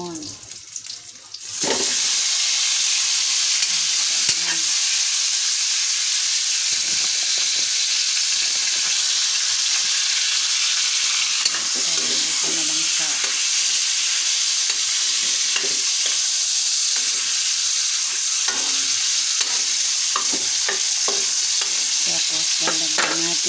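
Salmon pieces going into hot oil in a metal wok: the oil jumps to a loud, steady sizzle about a second and a half in and keeps frying, with a metal spatula moving the fish against the pan.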